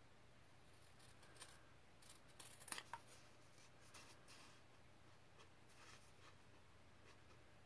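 Scissors snipping through inkjet-printed fabric still on its freezer-paper backing: a few faint, short cuts, with the loudest cluster about two and a half seconds in.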